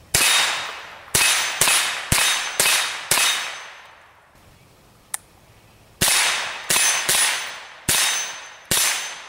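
Browning SA-22 semi-automatic .22 rimfire rifle firing eleven shots in two strings, six then five, with a pause of nearly three seconds between them. Each shot is a sharp crack with a short ringing tail, and the shots within a string come about half a second to a second apart.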